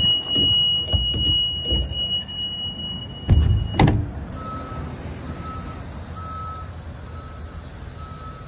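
School bus emergency exit door buzzer sounding a steady high tone while the door stands open, with some thumps. It cuts off as the door is shut with two sharp clunks a little over three seconds in. After that a quieter beep repeats about one and a half times a second.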